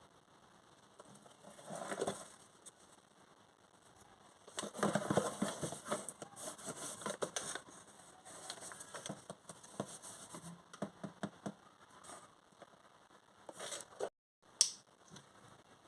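Close hand-handling noises: packaging crinkling and rustling, with scattered clicks and taps that are busiest a few seconds in, and a single sharp click near the end.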